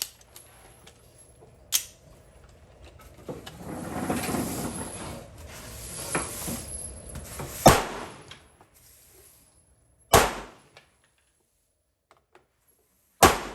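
Handgun shots fired one at a time, several seconds apart: a lighter crack about two seconds in, then three loud shots in the second half. There is a stretch of rustling noise in between.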